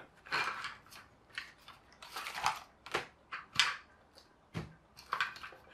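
A series of short rustles and light clatters as paper and small tools are handled on a tabletop.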